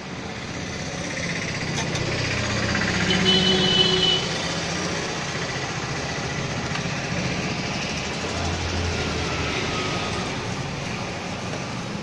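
Road traffic noise with a motor vehicle's engine swelling as it goes by, loudest about three to four seconds in, with a brief high-pitched tone at its peak.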